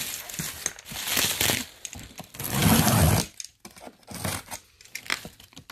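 Cardboard boxes being handled on a shrink-wrapped pallet, with plastic stretch wrap crinkling and a utility knife slitting packing tape, in scattered rustles and scrapes. A louder stretch of handling comes about two and a half seconds in.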